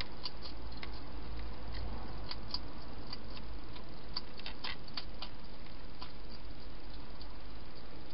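Hedgehog eating from a bowl: irregular small clicks and crunches of chewing, busiest in the first five seconds and sparse after.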